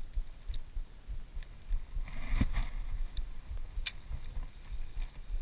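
Low, irregular rumbling and bumping with scattered small clicks as a spinning reel is cranked and the rod handled on a float tube; a single sharp click about four seconds in.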